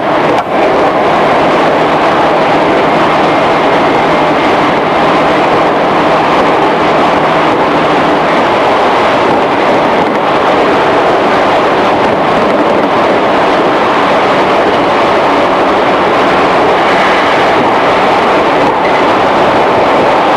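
JR 211 series electric train heard from inside a motor car while running: a steady, loud rumble of wheels and running gear. A low steady hum fades out about eight seconds in.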